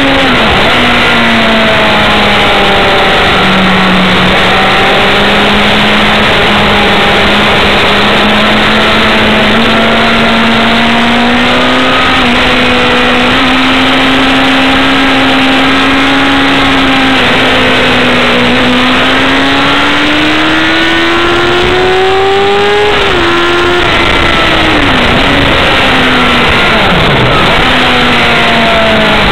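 Yamaha FZ6 Fazer's 600 cc inline-four engine, stock exhaust, heard from the bike itself at speed on track, under heavy wind rush. The engine note holds fairly steady, then climbs steadily for several seconds and falls sharply, dropping again in steps near the end.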